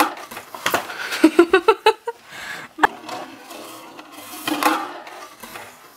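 Rigid plastic cupcake-carrier tiers and their clear plastic cup inserts being handled, clattering and clicking against each other. A quick run of clatter comes about a second in, and a single sharp click follows nearly three seconds in.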